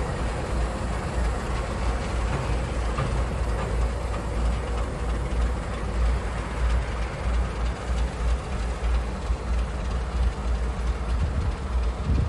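Three 48 class diesel-electric locomotives, each powered by an Alco six-cylinder 251 engine, running as they move off slowly coupled together without a train. The result is a steady, low diesel sound.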